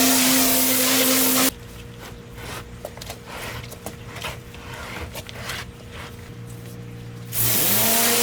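Pressure washer spraying with a steady hum and hiss, cut off suddenly about a second and a half in. The machine runs on at a low hum with light scattered knocks for about six seconds. Near the end the spray starts again and the pump's hum rises back up in pitch as it comes under load.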